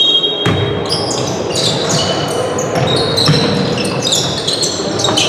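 Players' shoes squeaking again and again on a hard indoor court floor during a match, with ball bounces and a din of voices echoing around the hall.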